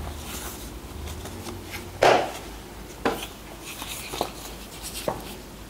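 Pens writing on paper on a tabletop, with a few short knocks against the table; the loudest comes about two seconds in.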